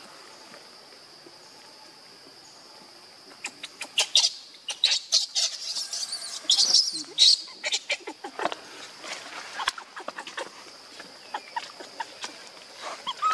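A steady, high, thin insect buzz, with a busy spell of clicking and rustling in the middle and short, high squeaky chirps at its height.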